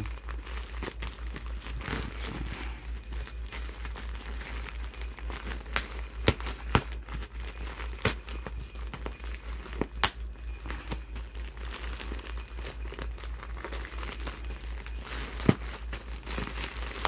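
Plastic poly mailer bag crinkling as it is handled and pulled open by hand, with a few sharp snaps as the plastic tears.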